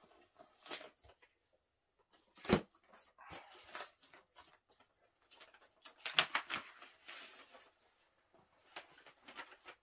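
Vinyl record's inner sleeve rustling and scraping in a few short spells as the LP is slid out and handled, with one sharper tap about two and a half seconds in.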